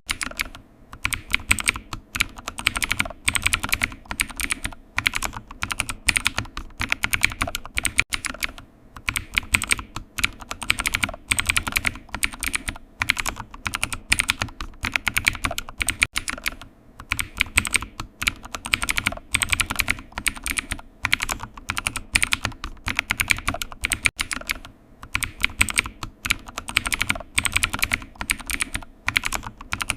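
Steady typing on a computer keyboard: rapid runs of key clicks, broken by brief pauses every few seconds.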